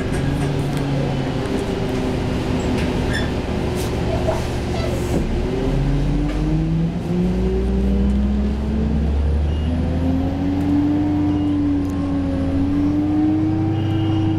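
Orion VII CNG bus's John Deere engine and Voith automatic transmission, heard from inside the cabin. The engine holds steady at first, then about halfway through its pitch dips and rises in steps as the bus accelerates through the gears, staying higher near the end.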